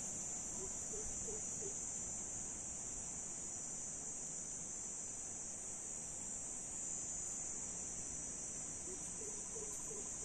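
Insects droning steadily in an unbroken high-pitched hum. A run of about four short, soft lower notes sounds twice, once about half a second in and once near the end.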